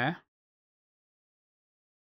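A short spoken word cut off right at the start, then dead silence with no room sound at all.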